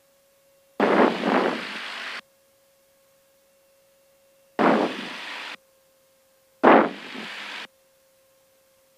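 Cessna 172 headset intercom: three short bursts of hiss, each opening with a louder puff and then cutting off sharply as the voice-activated squelch opens and shuts, over a faint steady hum.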